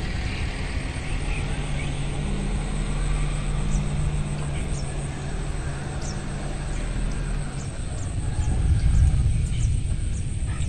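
Outdoor ambience: a steady low rumble with a faint hum, swelling about eight seconds in, and short high bird chirps scattered through.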